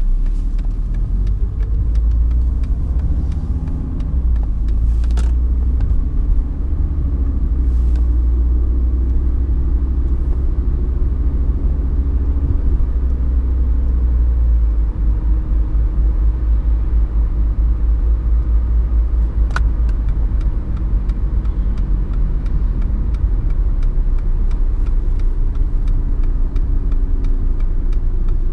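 Mercedes 190D's 2.5-litre five-cylinder turbodiesel (OM602) pulling the car along at town speed, its engine note rising in the first seconds and then rising and falling with the throttle over a steady low rumble of the drive, heard from inside the cabin.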